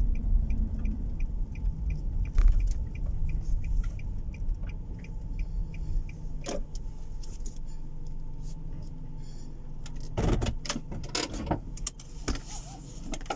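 Car engine running at low speed as the car pulls into a parking space, with a steady low rumble. Turn-signal ticking, about three ticks a second, runs until about five seconds in. Near the end comes a cluster of sharp clicks and knocks from inside the cabin.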